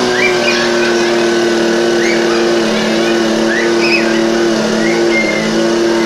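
A motor running steadily at an even pitch after spinning up.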